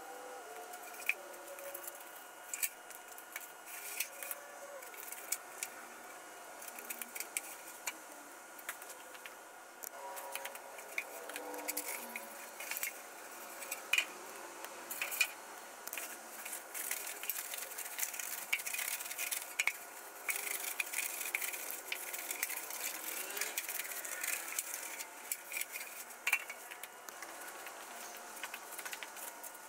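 Scattered light clicks, clinks and rattles of small hard objects being handled, with a faint steady whine underneath.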